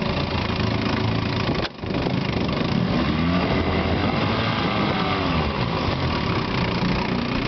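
1959 Evinrude 10 hp two-cylinder two-stroke outboard motor running in reverse gear, its engine speed rising and then falling in the middle.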